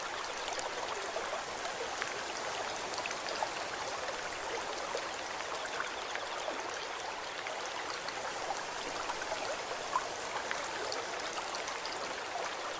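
Steady running water of a small stream, with light drips and splashes scattered through it.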